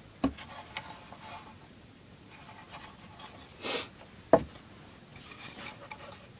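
Handling noise from working with a small wooden object: two sharp knocks, one just after the start and one a little past four seconds, with a brief swish before the second and light clicks and rustling in between.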